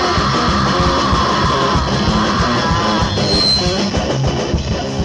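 Loud rock music with distorted electric guitar and drums.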